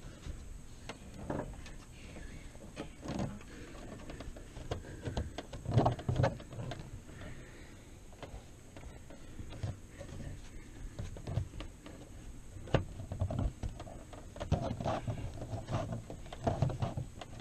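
New pop-up camper canvas being worked by hand into the aluminium roof rail's groove: irregular rustling and rubbing of the fabric and its edge strip, with a few sharp clicks.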